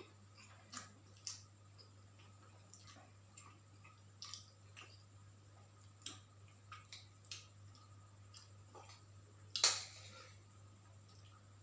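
Quiet eating sounds: cutlery clicking and scraping against a plate, and chewing, in small irregular ticks with one louder clink near the end.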